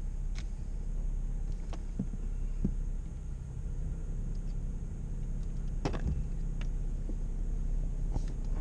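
Steady low rumble of a car's engine and tyres heard inside the cabin as it creeps forward in a queue. A few short clicks and knocks stand out, the sharpest about six seconds in.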